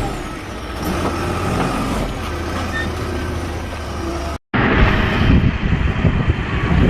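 Heavy machine's diesel engine running steadily with a low hum. It cuts off abruptly about four and a half seconds in, and rough wind noise on the microphone follows.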